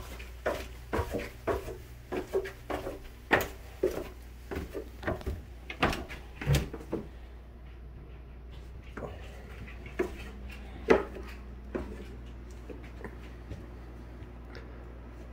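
Footsteps going down wooden stairs, a knock about twice a second, thinning out to a few scattered knocks after about seven seconds.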